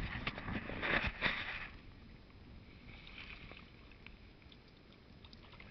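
Shallow stream water splashing in short bursts during the first couple of seconds, then only a faint, steady trickle.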